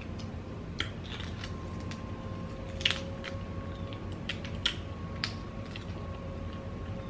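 Close-miked clicks and crackles of a boiled prawn's shell being peeled apart by hand. They come scattered and irregular, the sharpest about three seconds in, over a steady low hum.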